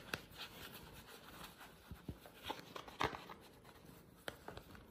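Faint scattered clicks and rubbing from a clear plastic cone collar as a hand strokes a kitten's head inside it.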